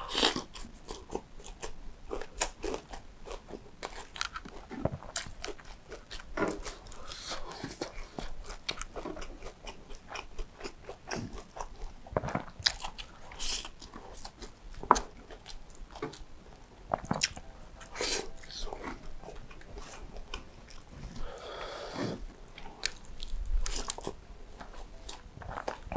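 Close-miked biting and chewing of fried chicken with rice, eaten by hand, with crunches from the crispy fried chicken skin as many irregular sharp clicks.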